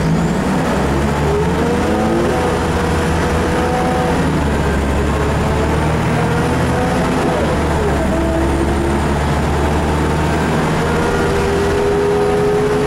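Scania DSC9 9-litre six-cylinder turbo diesel, rear-mounted, running under load as the bus drives, heard from inside the rear of the saloon. Its note climbs, drops about seven seconds in, and climbs again.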